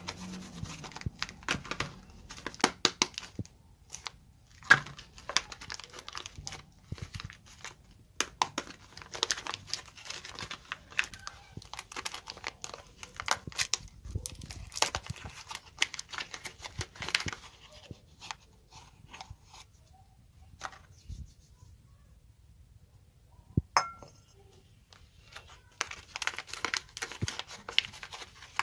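Paper wrappers on bars of soap being handled, crinkled and torn open by hand, in irregular bursts of crackling. The crackling pauses for a few seconds past the middle, broken by one sharp click, then picks up again near the end.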